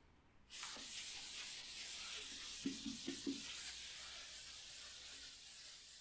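Board duster wiping chalk off a green chalkboard: a steady dry rubbing hiss of repeated strokes, starting about half a second in and slowly tapering off. Three short low bumps come a little past the middle.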